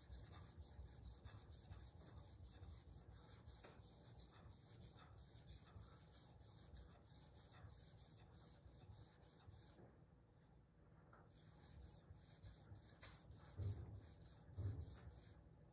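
Santoku knife blade scraped dry back and forth on a 25-micron diamond resin sharpening plate, a faint, even scratching at about three strokes a second that pauses briefly about two-thirds of the way through. The 25-micron grit is polishing out the 100-micron scratches. Two low thumps come near the end.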